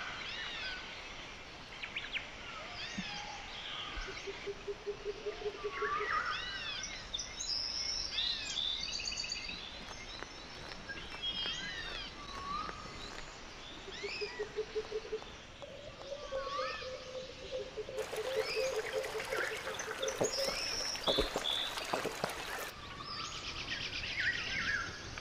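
Outdoor birdsong ambience: many short chirps and whistled calls from several birds, with a low, fast pulsed trill that comes and goes several times, longest from about two-thirds of the way through. Faint hiss under it all.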